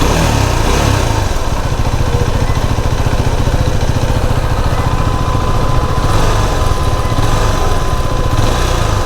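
KTM Duke 390's single-cylinder engine idling warm on its stand, with the noise the owner likens to a loose nut or bolt near the chain tensioner; the service mechanic judges it normal for a 390.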